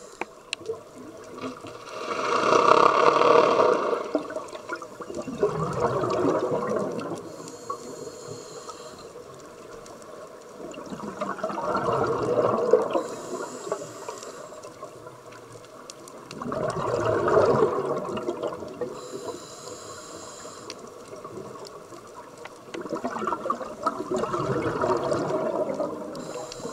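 Scuba diver breathing through a regulator underwater: four loud bubbling exhalations, each followed by a short, high hiss of the demand valve on the inhale, in a slow cycle of about six seconds.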